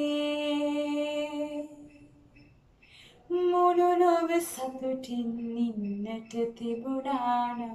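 A woman singing solo and unaccompanied in Sinhala: one long held note, a short breath pause, then a slower phrase of sustained notes that steps down in pitch and lifts again near the end.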